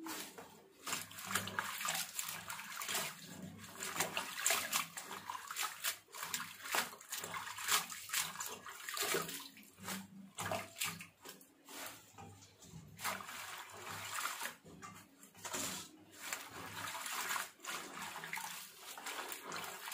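Water sloshing and splashing in a steel bowl as rubber-gloved hands swirl and squeeze stinging nettle leaves to rinse them, in irregular bursts.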